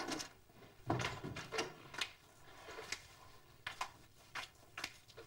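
A door bumps shut with a thud about a second in, followed by a scattered series of light footsteps and small knocks as someone walks into a room.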